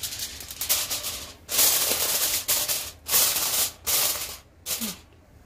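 Aluminium foil crinkling in several bursts as it is pressed and folded down over the rim of a bowl, stopping near the end.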